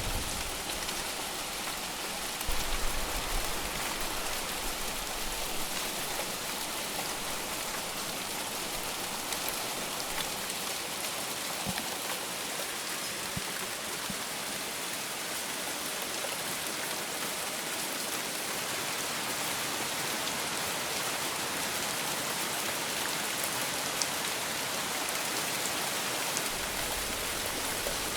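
Heavy, steady rain falling on surfaces: a dense, even hiss with scattered individual drops ticking through it. There is a brief low rumble about three seconds in.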